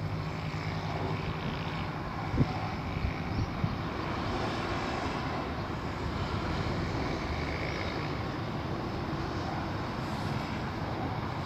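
Steady outdoor rumble and hiss, with a few light knocks a couple of seconds in.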